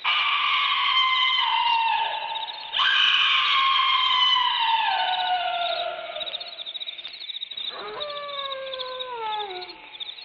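Drawn-out howls from a Halloween sound-effects record: three long cries, each gliding slowly down in pitch. One starts at once, a second comes in under three seconds in, and a softer third comes near the end.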